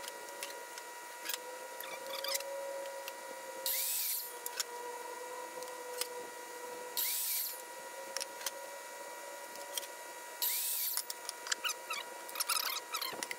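Sped-up timelapse audio of a DeWalt sliding compound miter saw making three quick cuts through a wooden board, each a short high-pitched burst, about three and a half seconds apart. A faint steady high hum runs underneath, and squeaky sped-up chatter comes in near the end.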